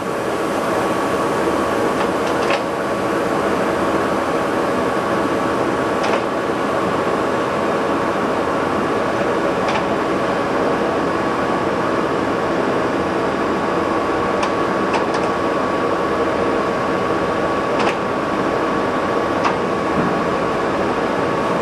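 TOS SN50C engine lathe running under power with the carriage on power feed, a steady mechanical hum with a constant high whine. A few light clicks come through now and then, about every few seconds.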